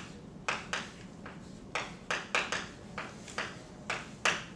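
Chalk writing on a blackboard: an irregular run of short taps and scratchy strokes, two or three a second, over a faint steady room hum.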